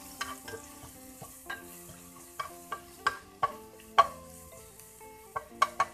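A steel spoon clinking and scraping against a dark pan while a ground spice paste sizzles in a little hot oil. The clinks come irregularly: the loudest is about four seconds in, and a quick run of three comes near the end.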